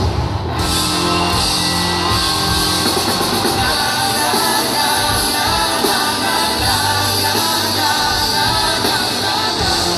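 Live pop-rock band playing with singing, heard from within the audience in a large amphitheater.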